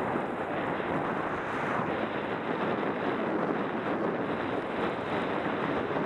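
Steady rushing of wind over an action camera's microphone as a skier descends a groomed run, mixed with the hiss of skis sliding on packed snow.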